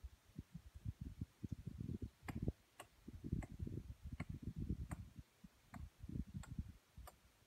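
Faint metallic taps, about eight of them, a little under a second apart, from work on the greenhouse's steel pipes, over gusty low wind rumble on the microphone.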